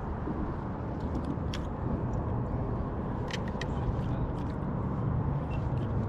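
Steady low rumble of wind and water on open water around a small fishing boat, with a few short light clicks.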